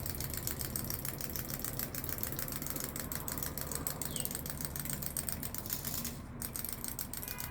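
Clockwork wind-up toy running on its freshly wound spring motor, a steady whirr made of rapid, even ticking.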